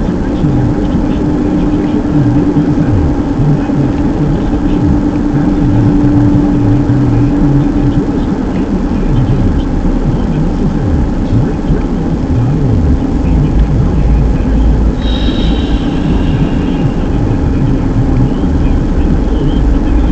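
Car being driven, with steady engine and road noise and a low rumble. A steady hum fades out about eight seconds in, and a brief high squeak comes about fifteen seconds in.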